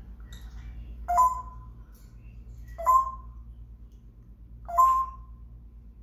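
African grey parrot giving three short, loud calls about two seconds apart, each a sharp onset that settles into a brief steady whistle-like tone.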